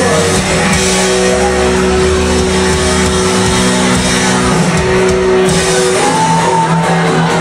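Live rock covers band playing, loud, with guitar and long held notes that change about six seconds in.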